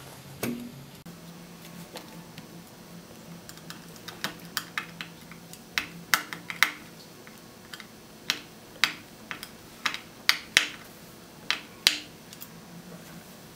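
Small, sharp metallic clicks and taps, irregular and coming thick and fast through the middle and latter part, as a screwdriver tip presses and seats the metal clamp that holds a new thermal fuse inside an electric iron.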